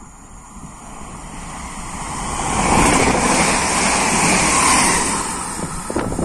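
Yellow-and-white electric multiple unit passing close at speed: the rush of wheels on rails and air swells to a loud peak and then fades as the train goes by. A few sharp knocks come near the end.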